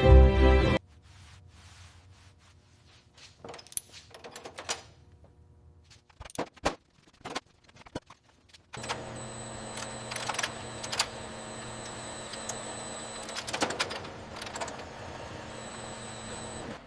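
Music cuts off near the start, then scattered sharp clicks and clinks come in small clusters. About halfway through, a steady machine hum with faint high tones starts up, with more clicks over it.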